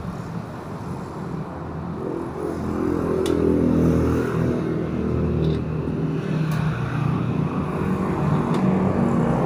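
A motor vehicle engine running, growing louder about two seconds in and shifting in pitch, with a few light clicks over it.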